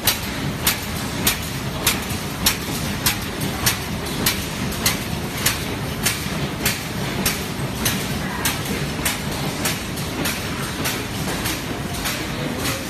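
WSD-600B plastic bag-making machine running: a sharp, regular clack about every 0.6 s, one per machine cycle, over its steady running noise.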